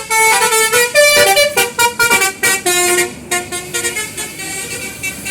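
Bus basuri melody horn playing a quick tune of short, stepped notes. It is loud for about three seconds, then carries on more softly.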